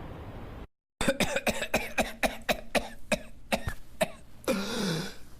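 Whooping cough of a pertussis infection: a fast run of short coughs, about five or six a second, then near the end one long drawn-in whoop that rises and falls in pitch.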